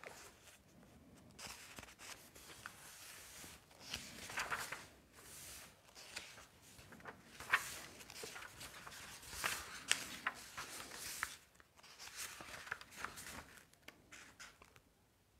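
Irregular rustling and handling noises with scattered sharp clicks and taps, stopping abruptly near the end.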